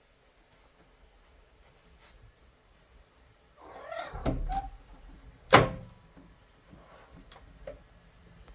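A cat working a door open: a second of rattling and creaking with a short squeak, then a single sharp knock about a second later.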